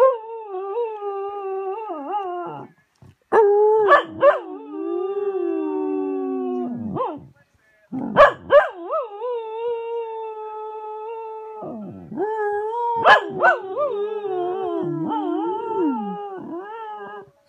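American Cocker Spaniel howling in a string of long, drawn-out howls several seconds each, broken by short sharp yips as some of them start.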